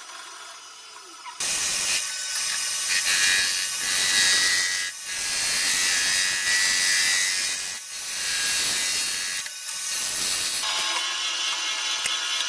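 Harsh, high-pitched noise of metal being machined, starting about a second and a half in and broken by three short pauses, then settling to a quieter, steadier run near the end.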